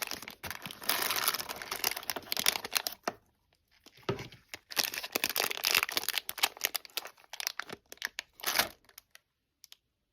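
Packaging wrapping being crinkled and pulled open by hand, in two stretches of dense crackle with a short lull about three seconds in; it stops about nine seconds in.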